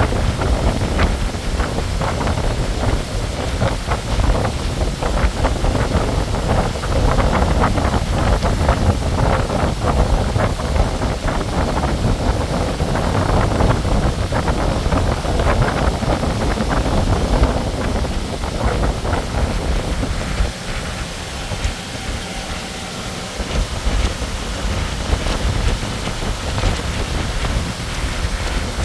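Wind rushing over the microphone of a pontoon boat under way: a steady, rumbling rush that eases for a few seconds about two-thirds of the way through, then picks up again.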